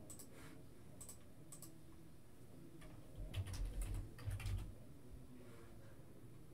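Typing on a Logitech computer keyboard, faint. A few single clicks come in the first second and a half, then a quick run of keystrokes with low thumps from about three to four and a half seconds in.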